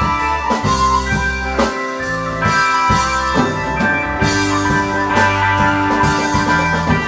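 Rock band recording: electric guitar over bass and a drum kit playing a steady instrumental passage with no singing.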